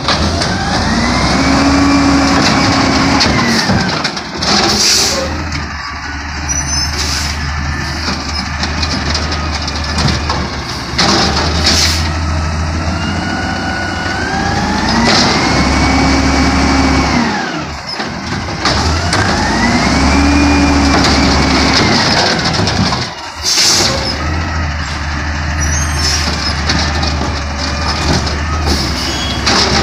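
Automated side-loader garbage truck's diesel engine running, revving up and back down three times as the hydraulic arm lifts and dumps trash carts. Short bangs and hisses from the arm and carts come in between.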